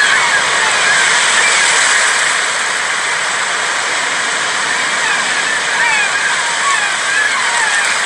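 Sea waves washing onto a sandy beach, a steady rushing hiss, with short high chirps scattered over it throughout.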